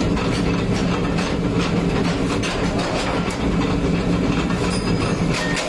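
Forging-shop machinery running, a mechanical power press among it: a steady mechanical drone with irregular metallic clanks and knocks.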